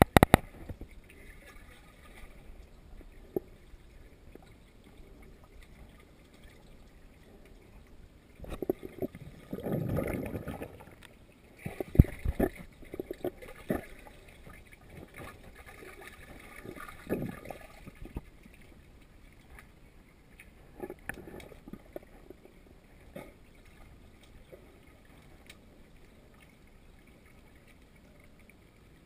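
Muffled pool water picked up underwater by a camera in a waterproof housing: a low steady wash with scattered knocks and bumps. Louder swirls of moving water come about a third of the way in and again a little later, then it settles back to the quiet wash.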